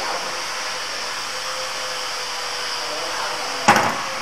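A steady hiss with a faint hum, then, about three and a half seconds in, one sharp metallic clack as the swing-handle latch of a metal electrical cabinet door is pulled open.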